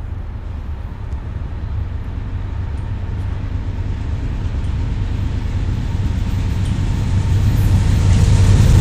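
CSX GE C40-8W (Dash 8-40CW) diesel-electric locomotive approaching at the head of a freight train, its 16-cylinder diesel making a low, steady rumble that grows louder as it nears.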